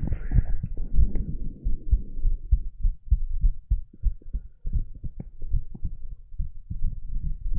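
Human heartbeat picked up from the chest during sit-ups: repeated low thuds, not much quickened by the exercise. A brief burst of noise lies over the beats in the first second or so.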